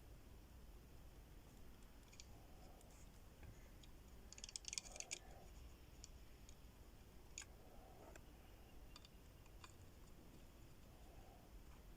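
Near silence with faint, scattered small clicks of tools touching the phone's circuit board during soldering, with a short cluster of clicks about four to five seconds in.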